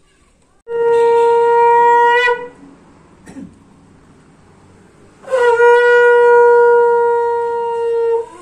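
Conch shell (shankh) blown in two long, steady blasts, the second one longer, each ending with a brief waver in pitch, sounded as part of puja worship.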